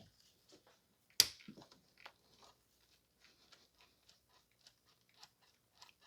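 Hands working a fuel pressure gauge hose and connector onto a car's fuel line: a scatter of small clicks and rustles, with one sharp click about a second in.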